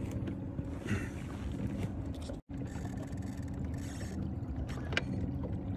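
A boat motor running steadily with a low, even hum. The sound cuts out for an instant about halfway through.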